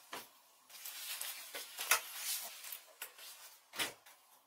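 Clothing rustling as a plaid jacket is unzipped and pulled off, with a couple of short sharp brushes of fabric, about halfway through and near the end.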